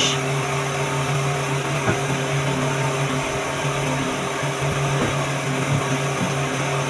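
Steady hum of a running motor, with a couple of faint knocks.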